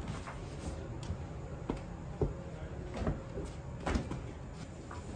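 Irregular light knocks and thumps, about one a second, over a low steady rumble.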